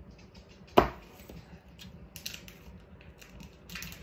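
Kitchen utensils and cookware being handled: one sharp knock about a second in, then scattered light clicks and taps.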